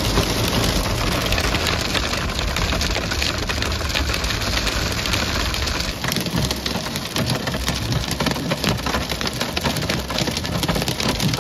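Hail and rain pelting a car's windscreen and roof, heard from inside the car: a steady dense patter of many small sharp ticks.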